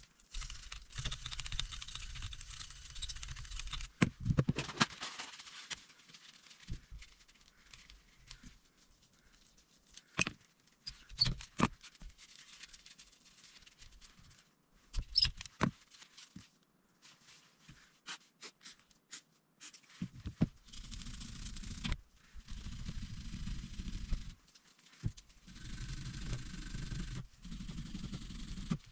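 Scrubbing in several bursts as a revolver's frame and barrel are brushed clean, with scattered clicks and knocks of metal parts and tools being handled between them.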